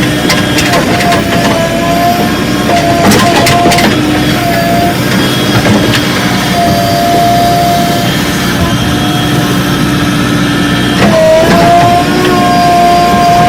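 JCB 3DX backhoe loader's diesel engine running under load with a steady whine that wavers, dips briefly about eleven seconds in and recovers. Several sharp knocks in the first few seconds.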